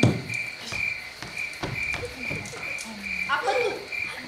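Night-ambience sound effect of frogs croaking over a steady high insect chirp that pulses about two and a half times a second, with a few soft knocks.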